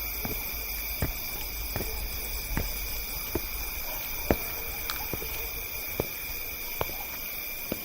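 Horror sound-effects track: a steady hissing ambient bed with a short knock about every 0.8 seconds.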